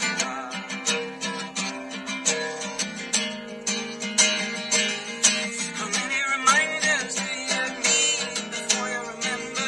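Acoustic guitar strummed in a quick, steady rhythm: an instrumental stretch of a folk song.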